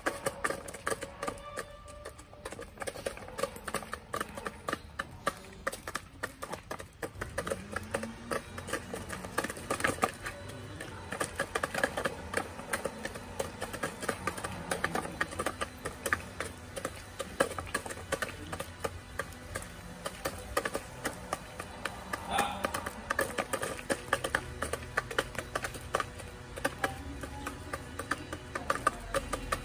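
Domestic chickens pecking at feed, their beaks tapping quickly and irregularly on the soil and on a plastic feeder, with occasional soft clucking. Soft background music plays under it.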